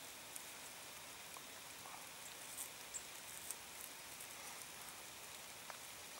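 Faint, steady light rain with a few soft scattered ticks of drops or crackles.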